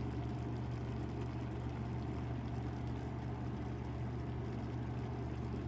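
Steady low mechanical hum, like a running fan or motor, with a faint even hiss over it; it holds unchanged throughout.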